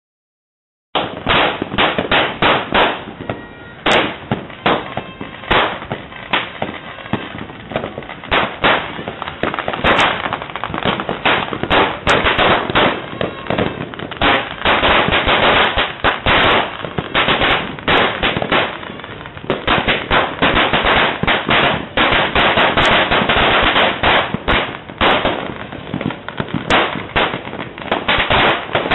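Firecrackers and fireworks going off almost without pause, a dense run of overlapping bangs and crackles, with a handful of sharper, louder cracks standing out. The sound drops out completely for about the first second.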